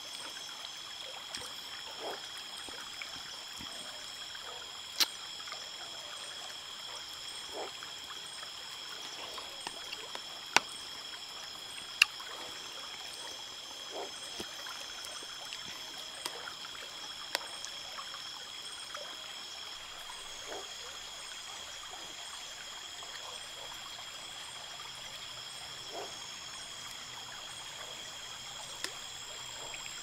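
River water trickling and flowing, under a steady high-pitched whine of several thin tones. A few sharp clicks stand out, the loudest two about ten and twelve seconds in.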